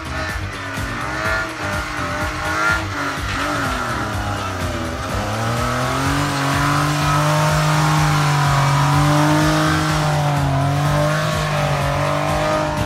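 Off-road race vehicle's engine revving hard while driving through snow. The pitch rises and dips repeatedly at first, then climbs about five seconds in and is held high and fairly steady.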